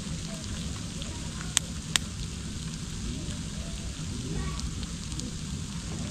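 Wood fire burning in a fire pit, with a steady sizzling hiss and two sharp pops close together about a second and a half in.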